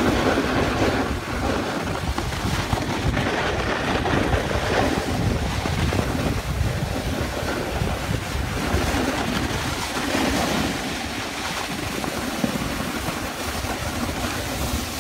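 Wind buffeting the microphone over the hiss and scrape of a snowboard's edge carving on snow, the hiss swelling and fading every few seconds.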